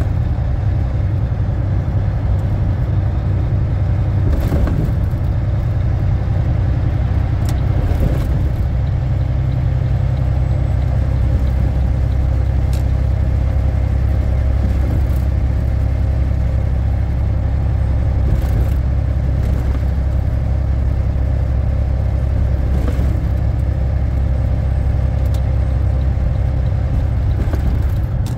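Volvo VNL780 semi-truck's diesel engine running steadily at highway cruise, a deep even drone with road noise as heard from the cab. A few brief clicks or knocks sound now and then over it.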